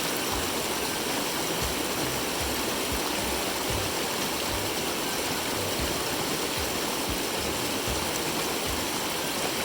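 Steady, even rush of a mountain stream's water flowing over rocks.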